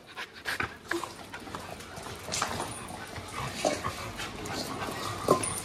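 A group of dogs moving about and making small, quiet dog sounds: scattered short noises, with no loud bark.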